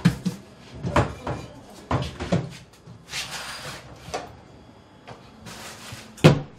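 Wooden cupboards and compartments under a shop counter being rummaged through: a string of knocks and bumps as doors and drawers are opened, shut and things shifted, with two spells of rustling in between and the loudest bang near the end.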